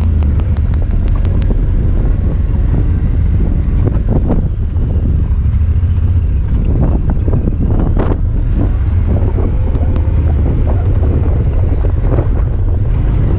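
Honda Talon 1000R side-by-side's parallel-twin engine running steadily while driving, a deep constant drone with wind on the microphone and scattered knocks and rattles. A fast regular ticking in the first second and a half comes from the camera.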